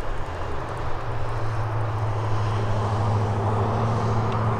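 Dash 8-400 turboprop taxiing, its propellers giving a steady low drone over engine noise.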